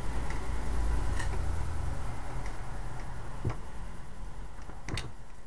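Small clicks of metal pistol parts being handled and fitted by hand as the pin and its retaining clip go onto a Crosman Marksman repeater, over a low rumble of handling noise. The sharpest click comes about five seconds in.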